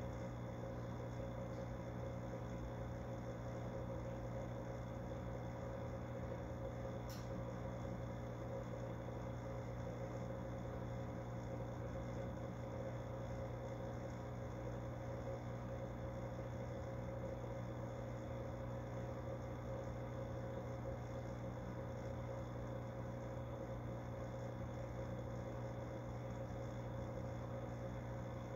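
Aquarium equipment running with a steady hum made of several fixed tones. A single short click about seven seconds in.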